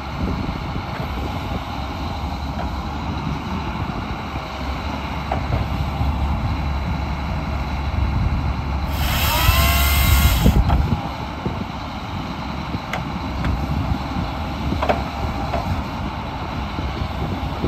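Diesel engine of a Cat wheeled forestry harvester running steadily as its boom and harvester head are worked. About halfway through, a loud hiss with squealing tones that bend upward lasts under two seconds, followed later by a few light metallic clicks.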